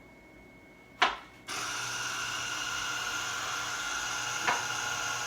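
A click, then an electric citrus juicer's motor switches on about a second and a half in and runs steadily with a low hum, juicing the last lemon half.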